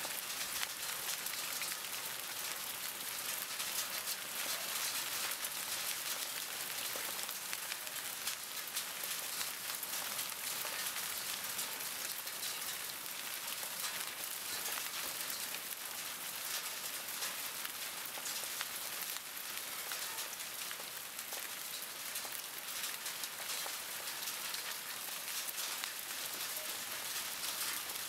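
Hail storm: a steady, dense patter of hailstones striking rock and surfaces, thousands of small crackling hits blending into a continuous hiss.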